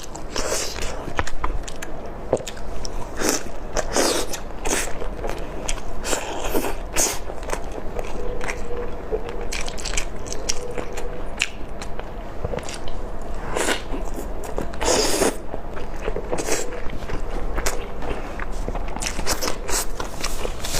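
A person biting and chewing braised chicken drumsticks close to the microphone: irregular wet clicks and crunches of mouth sounds.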